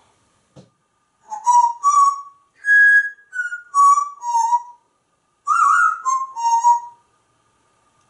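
African grey parrot whistling a short tune of clear notes in two phrases, with a brief break in the middle.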